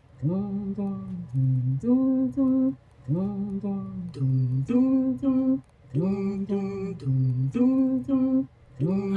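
Unaccompanied voice humming a wordless melodic phrase, a low held note followed by an upward swoop to higher notes. The phrase repeats about three times.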